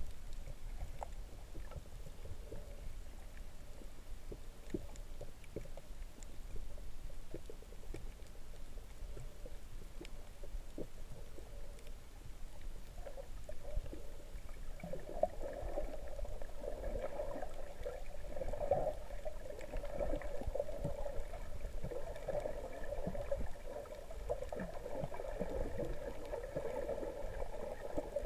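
Underwater sound heard through a submerged camera in shallow water: a low rumble of moving water with scattered faint clicks, joined about halfway through by a steady droning hum.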